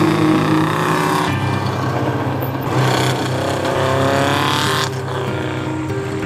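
1981 Honda CB750's air-cooled inline-four engine riding past and accelerating, its note rising twice, with abrupt changes where the footage is cut.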